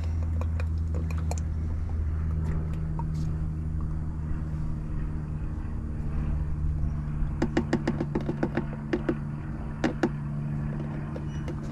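A steady low mechanical hum, with a quick run of small sharp clicks about two thirds of the way through and one more shortly after.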